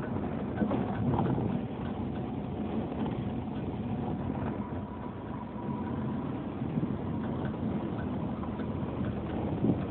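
A vehicle driving along a dirt road, heard from inside the cab: steady engine and tyre rumble with frequent small rattles and knocks from the bumps.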